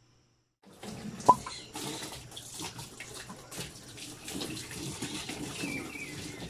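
Water from a hose splashing into the wash tub of a twin-tub washing machine as it fills, with one sharp click about a second in.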